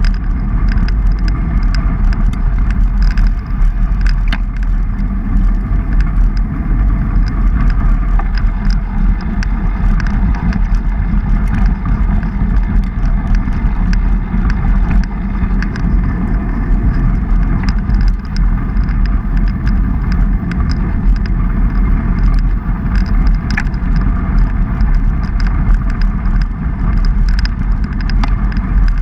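Mountain-bike ride recorded on the move: wind buffeting the microphone and tyres rolling over a dirt and gravel trail make a loud, steady low rumble with scattered small clicks and rattles.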